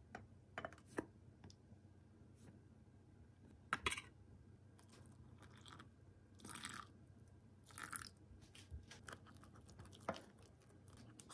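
Quiet kitchen handling sounds: flour tipped into a glass measuring jug, with sharp clicks and a knock about four seconds in. Water poured in briefly about six and a half and eight seconds in, then a spoon stirring the thick whole-wheat starter and clinking against the glass near the end.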